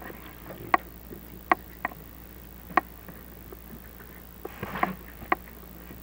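Sharp, irregular clicks and knocks, about seven over six seconds, from handling of the chimney inspection camera's push rods, over a steady low hum.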